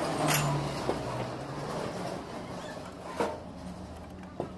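Metal hand tools clinking and knocking against the engine's front pulley and hub as it is fitted: a few sharp clinks, the loudest near the start, over a steady low hum.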